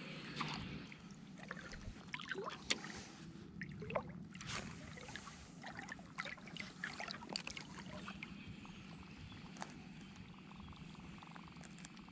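Faint water lapping and splashing around a float tube, with scattered light clicks and knocks from the fishing gear as a surface lure is retrieved on a spinning reel.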